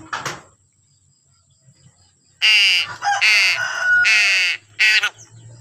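A bird giving four loud, harsh, crow-like caws in quick succession, each with a slightly falling pitch, the last one short.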